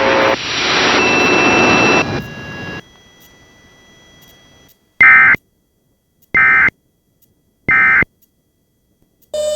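Emergency Alert System end-of-message data bursts: three short, identical buzzing digital tones about 1.3 seconds apart, the code that marks the end of the Amber Alert broadcast. The bursts follow a few seconds of loud hiss that drops to a low hiss.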